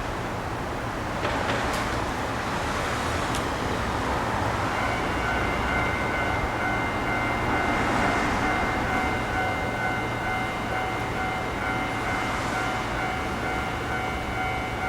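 Electric train noise at a station platform: a steady rumble with a couple of faint clicks early on, joined about five seconds in by a steady high electrical whine.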